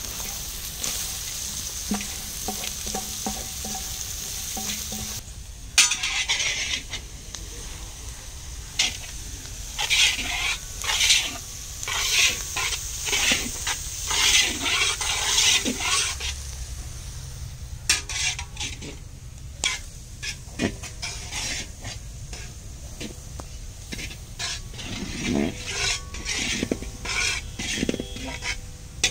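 Seeds sizzling with a steady hiss in hot oil in a large iron kadhai. About six seconds in, ingredients go into the oil with a sudden louder sizzle, and a long steel spatula then stirs and scrapes against the iron pan in repeated strokes, with metal clinks.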